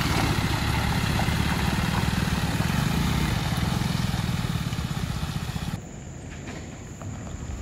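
An Eicher lorry's diesel engine runs close by as the truck drives slowly over a potholed, muddy road, with a motorcycle passing about halfway through. About six seconds in, the sound cuts abruptly to quieter, distant traffic.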